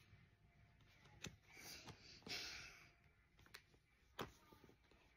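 Near silence: a child's faint breaths and a few soft taps and rustles of paper as she handles the pages of a picture book.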